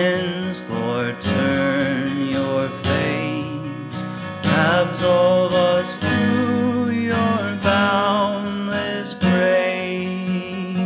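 A slow hymn verse sung to instrumental accompaniment, the voice wavering in vibrato on its held notes.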